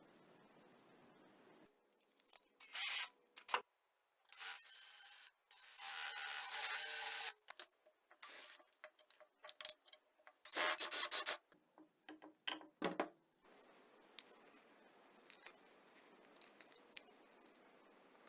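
Irregular rubbing and scraping strokes with short clicks and knocks, as of hand work on a workpiece, bunched between about two and thirteen seconds in. After that only a faint steady hiss with a few small ticks remains.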